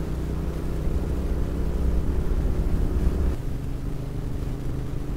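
Royal Enfield Interceptor 650's parallel-twin engine running steadily while the motorcycle cruises along the road, heard as a muffled, low note. A little over three seconds in, the deepest part of the note drops away and it gets slightly quieter.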